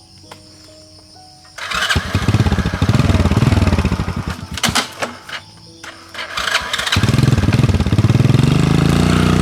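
A small engine starts about a second and a half in, runs unevenly with a few sharp clicks, then settles into steady running from about seven seconds in.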